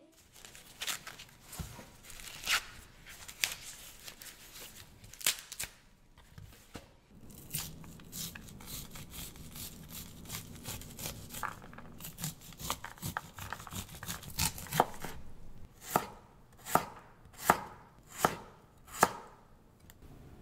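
Corn husks being torn off an ear of super sweet corn with crackly rustling, then a serrated kitchen knife cutting through the cob on a wooden cutting board. Near the end comes a run of about six sharp, evenly spaced knocks, less than a second apart, as the blade meets the board.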